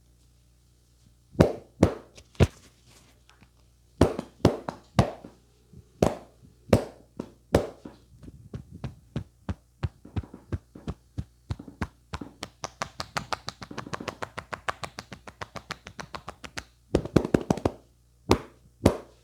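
Hands striking a person's head and shoulders in a percussive massage: a few separate slaps and short clusters, then a fast run of taps, several a second, for about eight seconds, then a last quick cluster.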